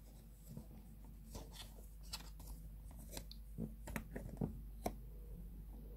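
Faint handling noise: scattered light clicks and rustles, closest together in the middle and sharpest near five seconds in.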